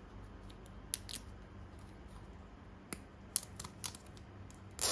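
Nylon cable tie being threaded and pulled tight by hand: a few scattered light plastic clicks, the loudest near the end.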